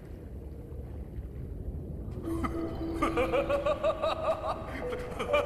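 Film soundtrack: a low rumble, then about two seconds in held music notes begin and a voice laughs over them.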